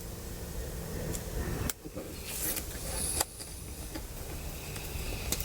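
Small screws being driven back into a MacBook Pro's battery mounting points, a few sharp clicks of the screwdriver and screws over a steady low hum.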